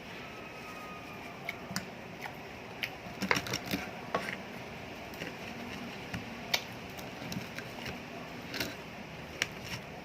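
Eating sounds: scattered sharp clicks and smacks of chewing and handling food, busiest a few seconds in, over a steady background hiss.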